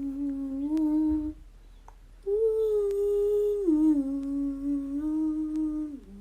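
A child humming a slow tune in long held notes, each phrase stepping down in pitch, with a short break about a second and a half in.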